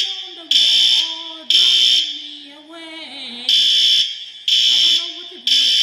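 A building fire alarm horn is sounding its evacuation pattern: three loud, high-pitched half-second blasts a second apart, a pause of about a second and a half, then three more. Under and between the blasts a person's voice yells along in long, sliding tones.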